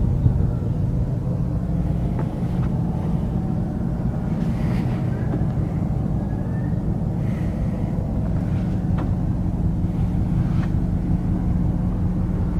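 Large diesel engine running at a steady speed, a low drone, with a few faint knocks.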